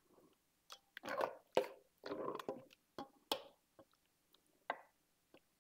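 Metal spoon tapping and scraping while wet sauce and filling are spread over lasagna noodles in a glass baking dish: a run of irregular clicks and soft squelching swishes, the sharpest taps about one and a half and three and a half seconds in.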